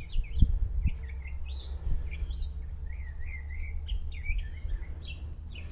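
Small birds chirping and twittering in quick, repeated short calls over a low steady rumble, with a couple of dull knocks in the first second.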